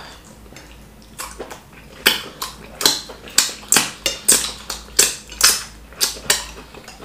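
Eating sounds at a fufu and soup meal: a run of short, sharp sounds, roughly two a second, starting about a second in.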